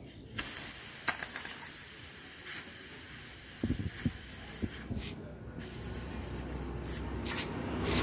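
Air hissing steadily, breaking off briefly about five seconds in, with a few soft knocks of tool handling underneath.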